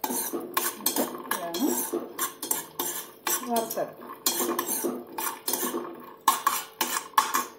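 A utensil scraping and clattering against a non-stick frying pan as halved cashew nuts are stirred while they roast in ghee, in quick repeated strokes about three a second.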